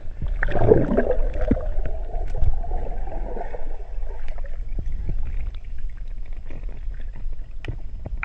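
Underwater sound from a submerged camera: a muffled low water rumble with scattered clicks and crackles, and a louder gurgling surge from about half a second in, fading by about three and a half seconds.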